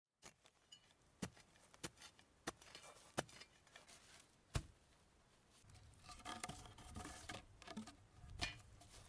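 A series of sharp clicks and taps of hard objects, about one every half second at first, then busier clinking and handling noise from about six seconds in.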